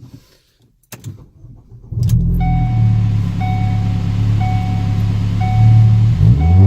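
Ford Focus engine started from inside the cabin: a few clicks, then about two seconds in the engine fires and settles into a steady low idle hum. A dashboard warning chime dings about once a second over it, and the engine pitch rises briefly near the end.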